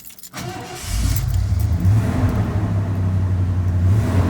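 Semi truck's diesel engine coming up to a steady low idle about a second in.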